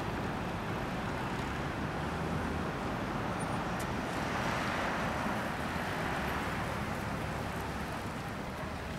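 Steady background hum of distant road traffic, swelling a little around the middle as a vehicle passes.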